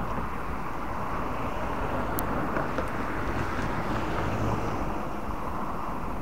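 Road traffic on a bridge: cars driving past close by, a steady mix of tyre and engine noise.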